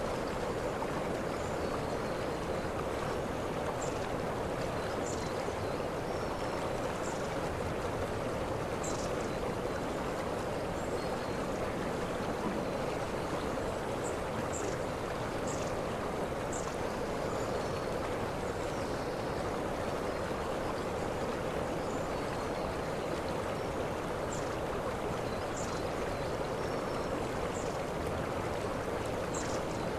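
Waterfall: a steady, unbroken noise of falling water, with short faint high chirps now and then.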